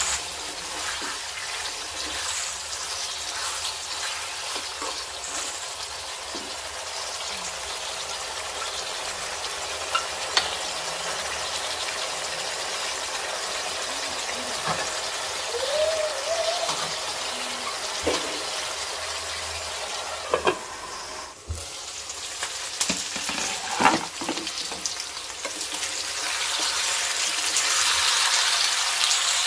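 Marinated chicken pieces sizzling as they fry in oil in a pan, with a spatula scraping and knocking against the pan now and then. The sizzle grows louder near the end as the pieces are stirred.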